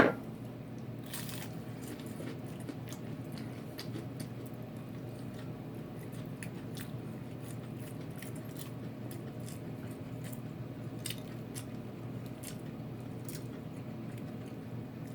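Close-up chewing and crunching of crispy fried chicken, with scattered short crackly mouth clicks over a steady low hum. A single sharp sound at the very start is the loudest moment.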